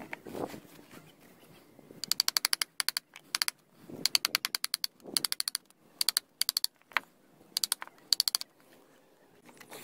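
A wood chisel worked in a hole in an old timber beam, chattering in a series of short bursts of rapid clicks.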